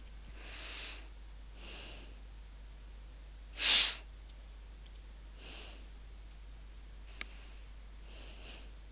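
A person breathing close to the microphone: several soft breaths, with one much louder, sharp sniff-like breath about halfway through. A faint click comes near the end.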